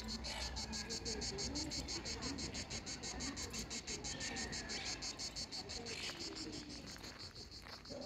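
Insects chirping in a steady high-pitched pulsed rhythm, about seven pulses a second.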